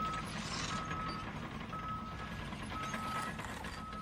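A vehicle's reversing alarm beeping about once a second, each beep a single steady half-second tone, over a low engine rumble.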